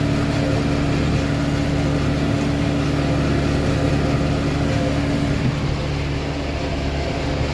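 Tractor engine running steadily under load while pulling a forage harvester chopping hay silage, with a constant low hum.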